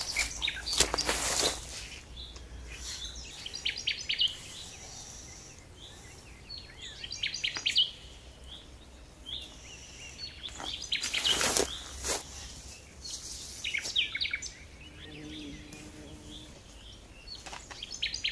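Songbird singing short, high chirping phrases every few seconds. Two louder bursts of rustling and scuffing come about a second in and again past the middle, as a tarp's side is pulled out and fixed at ground level.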